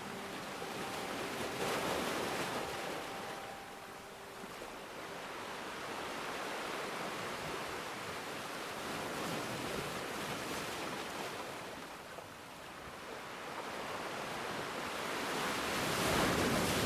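Ocean surf: waves breaking and washing on a shore in slow swells, building and fading three times.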